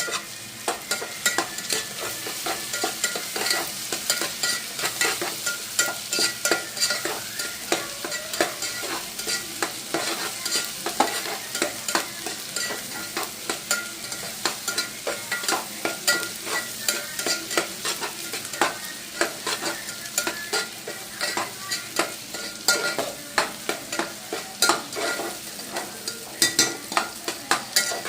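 Food sizzling in hot oil in a cooking pan while it is stirred, with frequent sharp clicks and scrapes of the spoon against the pan.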